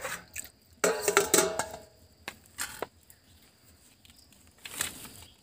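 Scattered clinks and knocks of metal cooking vessels being handled, with a brief ringing clink about a second in and a few single clicks after.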